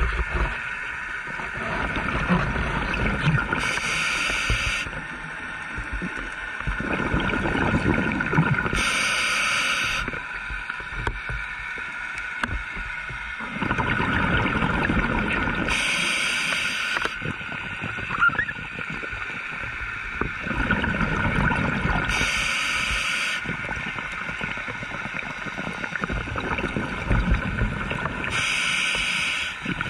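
Scuba diver breathing through a regulator, heard underwater: a regular cycle of about five breaths, each with a short hiss and a longer rush of bubbles.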